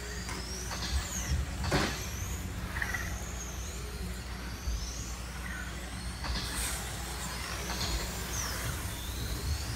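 Electric RC touring cars lapping a carpet track, their motors whining high and sweeping up and down in pitch as they accelerate and brake through the corners, over a steady low hum. A short knock sounds about two seconds in.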